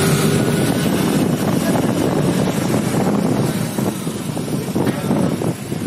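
Steady rumble of a bus's engine and road noise, with wind on the microphone, easing slightly near the end.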